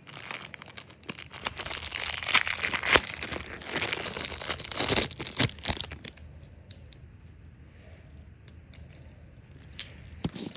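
Packaging of two crankbait fishing lures being crinkled and torn open by hand, with a run of sharp crackles and clicks for about six seconds, then only a few faint clicks.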